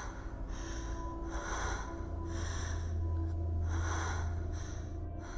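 Heavy, rasping breaths, about one a second, over a low droning horror-film score that swells in the middle.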